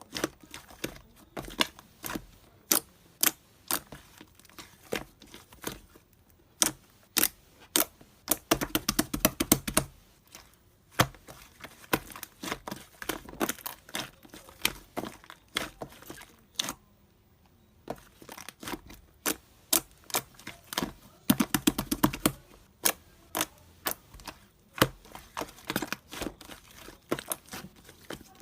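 Slime being squished and pressed by hand, making sharp wet clicks and pops, with two dense runs of fast crackling, about a third of the way in and again about three quarters in.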